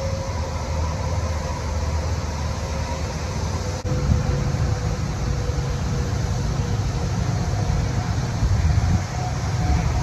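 Steady low rumble of interstate traffic, with a steady droning chorus of Brood X periodical cicadas above it. The sound breaks off and resumes abruptly about four seconds in.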